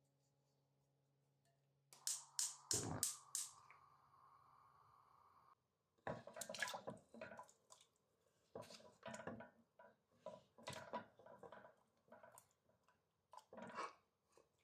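Kitchen work sounds. About two seconds in, a few sharp clicks come with a short stretch of water running or being poured. After that come irregular light clinks, knocks and rustles of utensils and dishes being handled.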